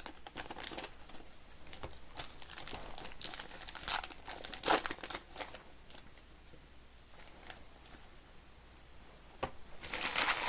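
Trading-card pack wrappers crinkling and tearing as packs are opened, with the crackles busiest in the first half and again near the end.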